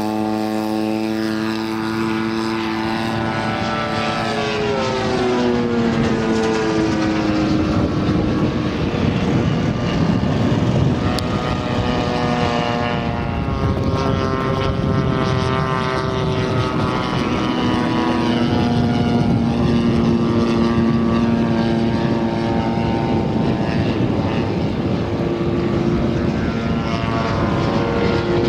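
EME 35cc two-stroke petrol engine of a large RC sport aerobatic model plane running in flight, its propeller tone sliding up and down in pitch as the throttle changes and the plane passes by.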